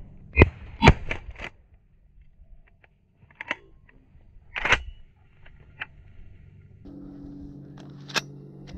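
A shotgun fired twice in quick succession near the start, the two shots about half a second apart, followed a few seconds later by further sharp reports, the strongest about four and a half seconds in. A low steady hum comes in for the last couple of seconds.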